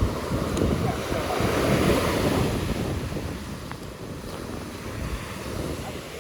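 Surf washing onto the beach with wind buffeting the microphone; the surf swells louder about two seconds in.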